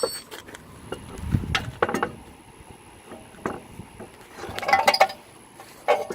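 Metal tools and parts clinking and knocking as the wheel is being put back on a car's front hub: a few knocks about a second and a half in, and a denser cluster of ringing clinks around five seconds in.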